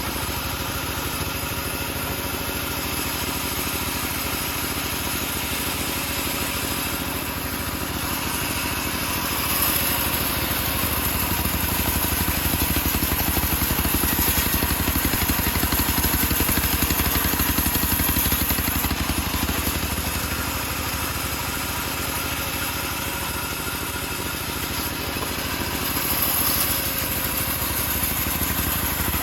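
Engine-driven homemade bandsaw sawmill running steadily while sawing a teak log. The sound grows louder and hissier from about ten to nineteen seconds in and again briefly near the end.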